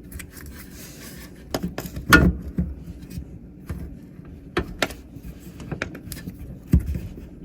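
Irregular handling clicks and light knocks as the dishwasher's pressure sensor and its wire connector are fitted back in place, with a dull knock near the end.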